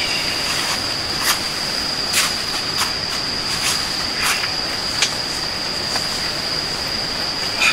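Steady hiss of rain on tent fabric with a continuous high insect trill, cricket-like, and scattered sharp clicks and taps.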